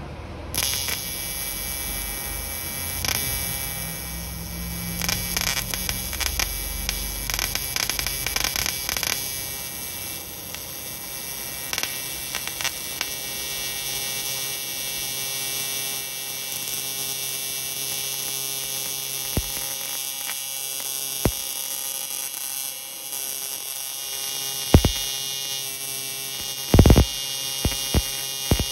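AC TIG welding arc on an aluminium intercooler charge pipe: a steady electric hum and buzz starting about half a second in, with bursts of crackling in the first half and a few sharp pops near the end.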